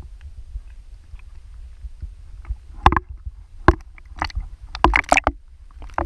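Small sea waves lapping and splashing against a camera held at the water's surface, over a low steady rumble. Sharp splashes start about three seconds in and come more often toward the end.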